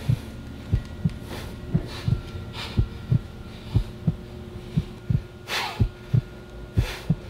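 Heartbeat sound effect: paired low lub-dub thumps about once a second, over a steady low hum, with a few short breathy rushes of noise.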